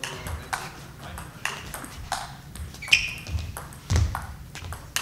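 Table tennis rally: the ball clicking sharply off the bats and the table in a quick back-and-forth, about two hits a second.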